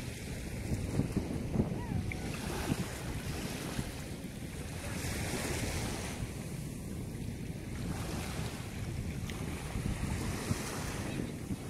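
Sea waves washing onto a beach, with wind buffeting the microphone as a steady low rumble; the surf swells up twice, about halfway through and again near the end.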